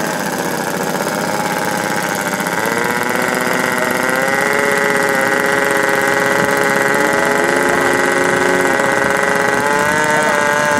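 Radio-controlled model float plane's engine running as it taxis on the water, a steady drone that grows a little louder and shifts pitch several times.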